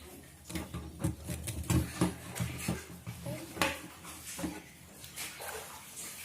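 Hard plastic toy parts being handled: irregular small clicks, taps and knocks.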